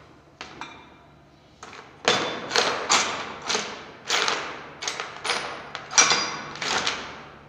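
Metal tools knocking on a motorcycle engine during assembly: a few light clicks, then from about two seconds in roughly a dozen sharp metallic knocks at about two a second, each with a short ring.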